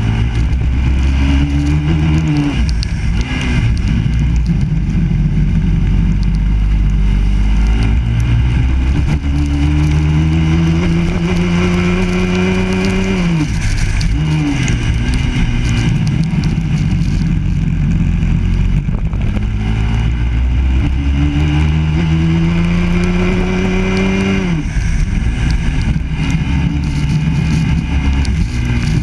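Four-stroke engine of a Biland SA250 racing kart, heard onboard, pulling up through the revs in long rising sweeps. It drops off sharply three times as the throttle is lifted.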